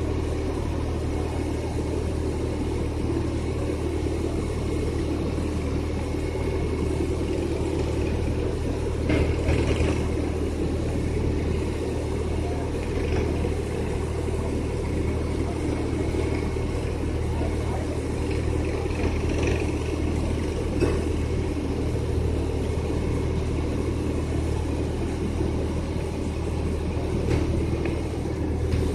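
Heavy construction machinery engine running steadily with a low drone, as a steel girder is launched.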